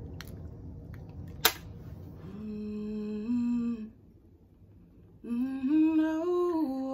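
A woman humming into a microphone: a few long, steady notes that step up and down in pitch, with a pause in the middle, as she warms up to test her new studio microphone. A single sharp click about a second and a half in.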